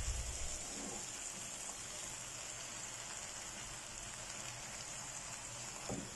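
Chicken pieces with onion and curry spices sizzling in hot oil in a pot, a steady hiss. A dull knock right at the start as the spatula works the pot.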